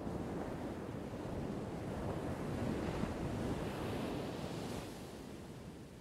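Ocean surf, one wave washing in: a rushing hiss that builds, is loudest just past the middle, and fades away near the end.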